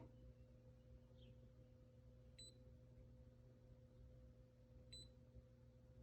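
Faint short electronic beeps, two of them about two and a half seconds apart, over a low steady electrical hum.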